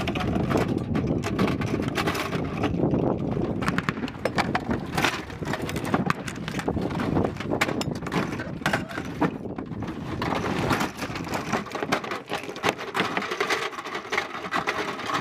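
Belts of linked .50-calibre cartridges rattling and clinking as they are handled, a dense run of small metallic clicks.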